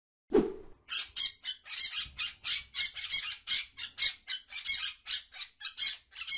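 Parrots squawking: a fast run of harsh, high calls, about four a second. A single short thump comes just before the calls begin.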